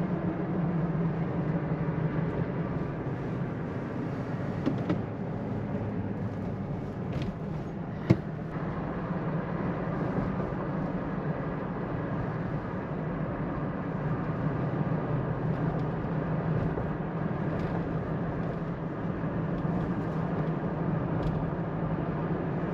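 Toyota Tacoma pickup driving along, a steady engine and road hum, with one sharp click about eight seconds in.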